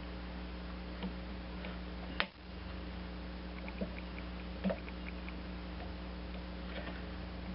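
A few light clicks and taps, one sharper click about two seconds in, over a steady electrical hum.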